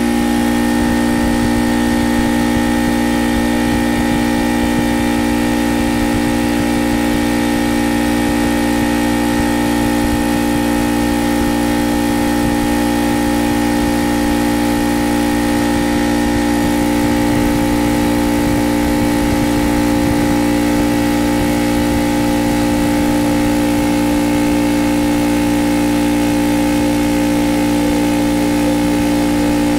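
Craftsman air compressor running steadily at an even pitch, its pump building pressure in the tank.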